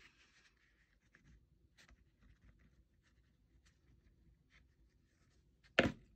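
A wax crayon scratching and rubbing over embossed cardstock in faint, irregular strokes, then one sharp knock near the end.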